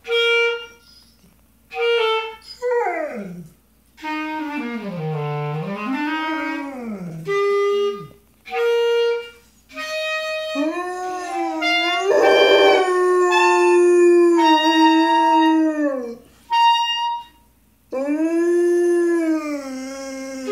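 A clarinet playing short held notes while a Labrador retriever howls along in long howls that slide and waver up and down in pitch. The clarinet and dog take turns and overlap.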